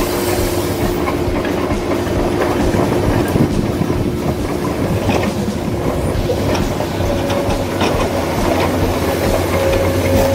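Huina remote-control dump truck towing two trailers: a steady electric motor and gear whine, with scattered clattering and rattling as the wheels and trailers run over bumpy dirt.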